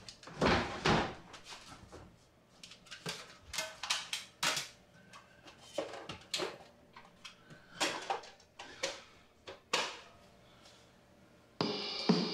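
Objects being handled in a kitchen drawer and along a countertop: scattered knocks, clatters and rustles at irregular intervals. Music with a beat starts near the end.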